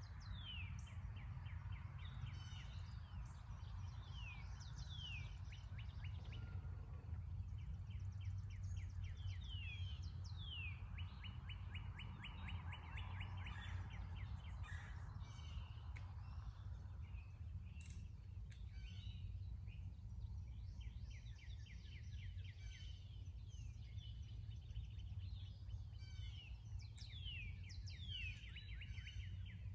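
Several songbirds singing and calling, with repeated downward-sliding whistled notes and fast trills, over a steady low background rumble.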